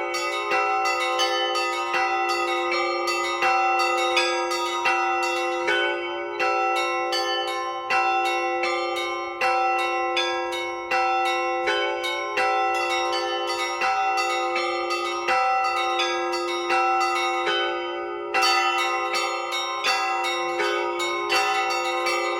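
Russian church bells rung by hand in a continuous peal: a rapid, busy pattern on the small treble bells over the hum of larger bells. A heavier bell is struck about every one and a half seconds.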